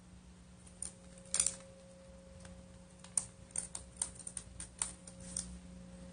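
Footsteps crunching and clicking on rubble-strewn concrete. It is an irregular scatter of sharp clicks, loudest about a second and a half in, then a quicker run of them from about three to five and a half seconds in.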